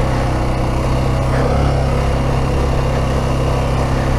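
Yamaha XT 600 E's single-cylinder four-stroke engine running steadily as the motorcycle rides along a snowy dirt track.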